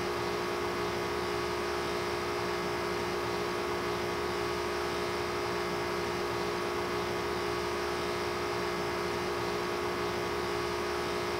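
A steady hum with hiss. Several constant tones sit over an even noise, with no change, starts or stops.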